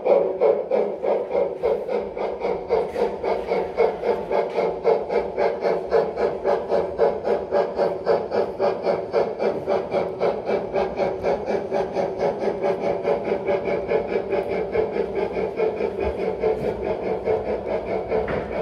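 Gauge 1 model steam locomotive chuffing in a steady, even rhythm of about four to five beats a second as it hauls a crane train.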